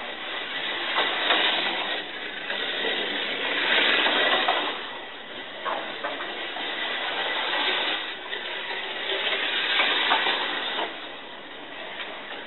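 A 1/43 scale SCX Compact slot car running laps on a plastic track. Its small motor and the guide running in the slot make a whirring buzz that swells and fades several times as the car comes near and goes away, with a few sharp clicks.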